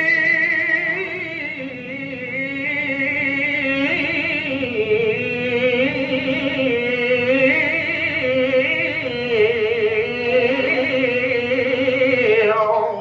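A man's voice in melodic Qur'anic recitation (tilawah) through a microphone and PA, holding one long ornamented phrase with heavy vibrato on a single breath. The pitch dips about four seconds in, then wavers, and the voice breaks off just before the end.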